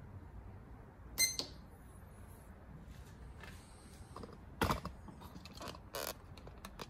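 A digital weighing scale gives one short electronic beep as a key is pressed about a second in. Later a bottle is set down on the scale's steel pan: a loud knock a little before 5 seconds, a second clunk about a second later, then a few light clicks.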